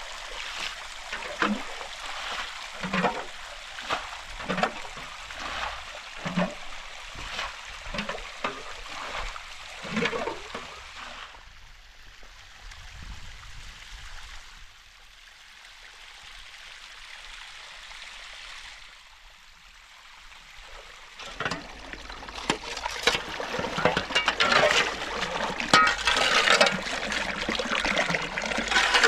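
Water splashing in a string of short strokes, about one a second, then a quieter lull. Past the middle, a rising rush of poured or gushing water.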